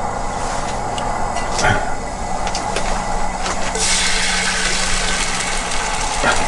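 Bread sizzling in hot butter in a frying pan, the sizzle starting about four seconds in as the French toast goes into the pan, with a short knock before it. A steady engine hum runs underneath throughout.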